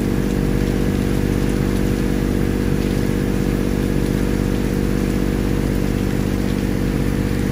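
Boat engine running steadily at a constant speed, an even low drone.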